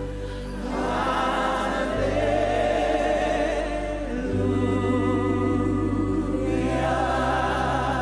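Gospel worship music: voices singing long held notes with vibrato and no clear words, over sustained low keyboard or bass chords that change about every two seconds.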